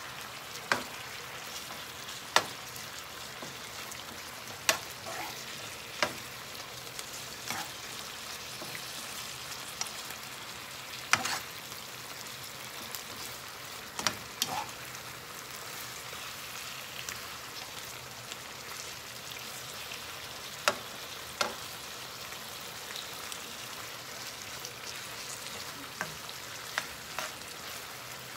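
Pork spare ribs sizzling in a frying pan in oyster sauce, soy sauce and tomato paste. A utensil knocks sharply against the pan now and then as they are stirred.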